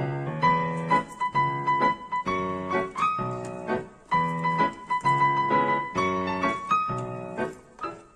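Background piano music, with notes and chords struck in a steady rhythm.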